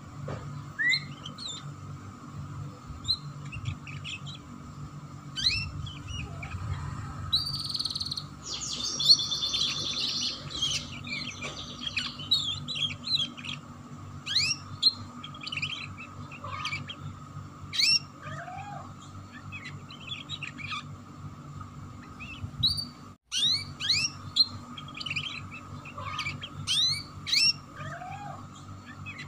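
Domestic canary singing in the fast, chattering 'ngeriwik' style: many quick rising chirps, with a dense rapid trill about eight seconds in. A steady faint hum runs underneath, and the sound drops out for a moment about 23 seconds in.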